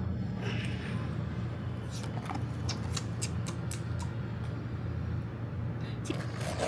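Small clicks and light rustles of blind-box packaging being handled, over a steady low hum. The clicks cluster about two to three and a half seconds in and again near the end.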